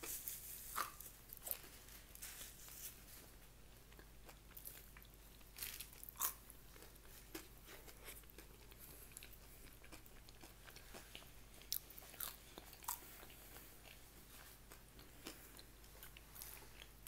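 Faint chewing and crunchy biting of food, with scattered short mouth clicks and a few louder crunches.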